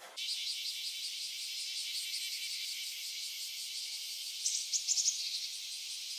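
Crickets chirping in a steady, evenly pulsing high trill, with a short run of quicker, higher chirps about four and a half seconds in.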